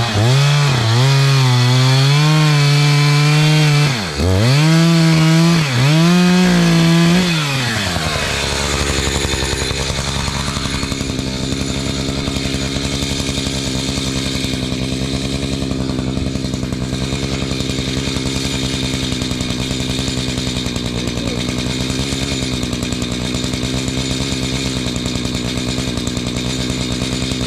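Two-stroke chainsaw at full throttle cutting into a log with its freshly filed chain, the pitch wavering under load and dipping twice. About eight seconds in it drops to idle and idles steadily for the rest of the time.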